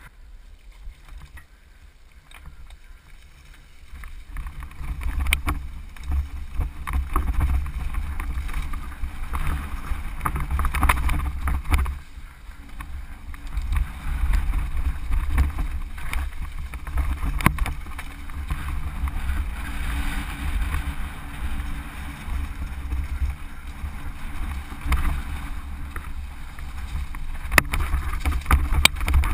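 Mountain bike descending a rocky dirt trail, with wind buffeting the bike-mounted camera's microphone and the tyres and frame rattling over stones, plus a few sharp knocks. It is quieter for the first few seconds and louder from about four seconds in.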